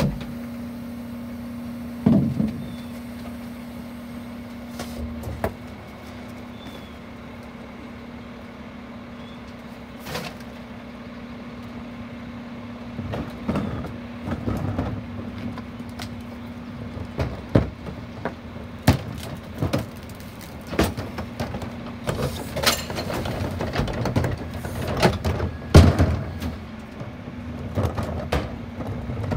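Split-body Heil rear-loader garbage truck idling with a steady hum while trash is thrown into its hopper. Irregular knocks and clatters, much thicker in the second half, as a wheeled bin is tipped in.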